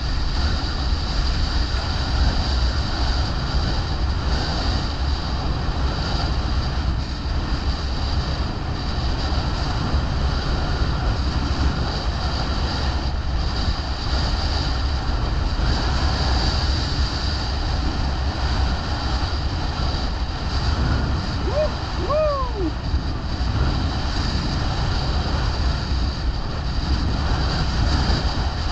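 Gusty wind buffeting an action camera's microphone while wing foiling, with water rushing and splashing under the board. About three-quarters of the way through there is a brief high call that rises and then falls.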